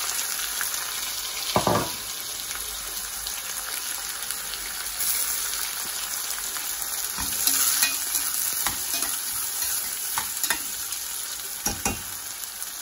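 Chopped red onions sizzling in hot ghee and oil in a heavy pot, a steady frying hiss. A knock comes about two seconds in, and a few clicks later on as a spatula stirs them.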